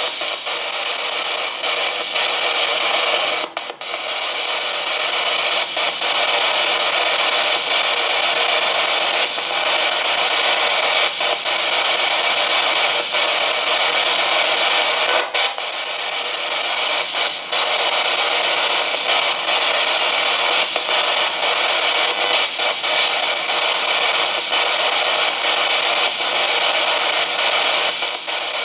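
GhostStop S Box spirit box sweeping through radio frequencies in reverse, giving a steady hiss of radio static broken by short clicks and brief dropouts as it steps from station to station.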